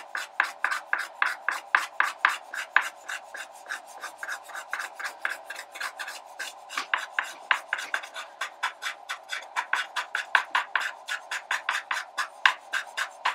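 Soft pastel stick scratching and rubbing across drawing paper in quick, short feathering strokes, several a second, as a light blue is worked into a blue band.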